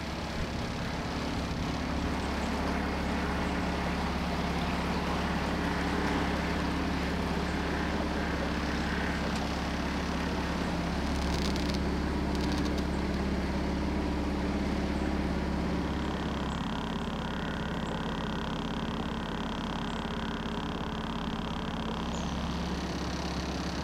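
Small outboard motor running steadily, driving a little fibreglass cruiser along a canal, with a continuous low hum.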